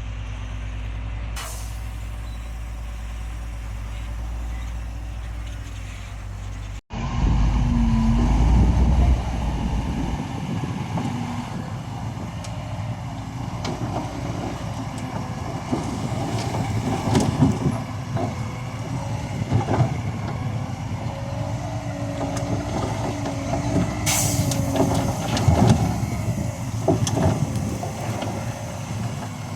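Diesel engines of heavy earthmoving machinery at work. A steady low engine rumble gives way, after an abrupt cut about seven seconds in, to a louder stretch full of clanks and knocks, with a brief sharp hiss later on.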